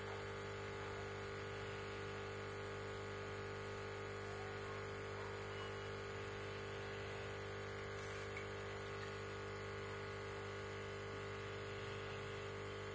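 A steady electrical hum that does not change, with no distinct events over it.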